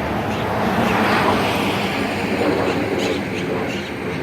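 Steady rumble of passing vehicle noise, swelling about a second in and easing off near the end.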